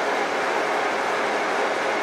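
Steady crowd noise from spectators, an even wash of many voices with no single call or strike standing out.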